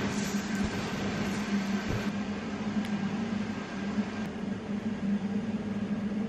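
A steady low mechanical hum over a background hiss, with a few faint light knocks.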